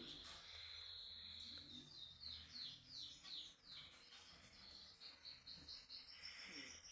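A bird chirping faintly: two quick runs of short, falling high notes, a few a second, the first about two seconds in and the second near the end.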